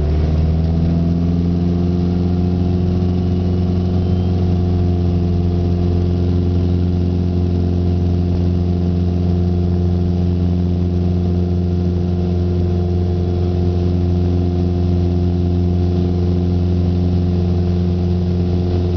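Mooney single-engine piston plane's engine and propeller at full takeoff power, heard inside the cabin as a loud, steady droning note. Its pitch climbs slightly in the first second and then holds.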